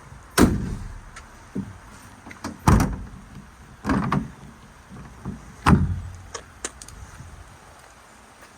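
Compartments of a fiberglass truck service bed being shut and latched: four loud bangs with lighter clicks and knocks between them.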